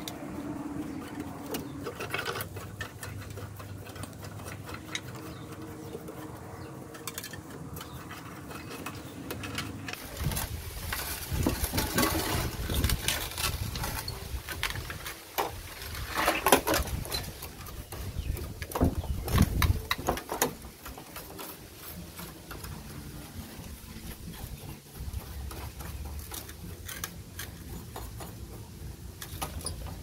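Brushing and scraping grime off the rusty metal works of an old Corona SCM typewriter, with dry scratchy strokes and small clicks. About ten seconds in it gets louder for about ten seconds, with knocks and rattles of the metal carriage and frame as they are handled, then settles back to brushing.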